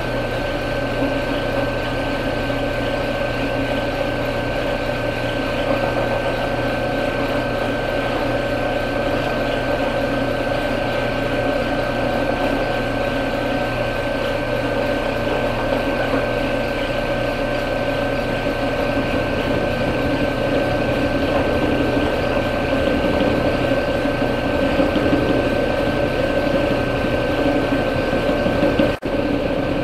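Delta Rockwell drill press, set up as a mill, running steadily with a constant whine from its motor and spindle drive while a 5/16-inch four-flute high-speed steel end mill cuts into an aluminum fitting. The sound breaks off for a moment near the end.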